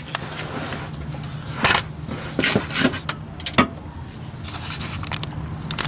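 Scattered metallic clicks and knocks from a torque wrench being worked on an oil drain plug, straining to break the plug loose, over a steady low hum.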